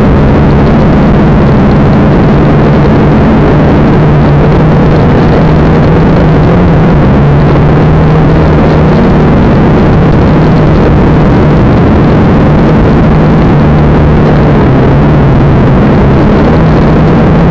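A small camera drone's electric motors and propellers whirring loudly and steadily, heard up close with a low hum under a wash of rotor noise.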